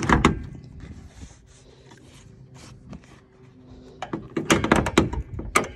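Car hood being opened. A knock comes at the start, and about four seconds in a quick run of clicks and knocks follows as the hood's safety latch under the front edge is released and the hood is lifted.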